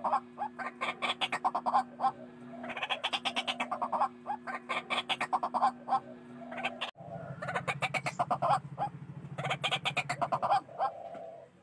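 White-breasted waterhen (ruak-ruak) calling: repeated bouts of rapid, harsh pulsed notes, each bout about a second long, one following another with short gaps.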